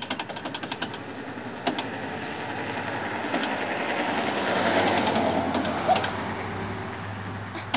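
Plastic selection buttons on a vending machine clicking as they are pressed over and over, in a quick run in the first second and then now and then. Under them a passing vehicle's noise swells to a peak about five seconds in and fades.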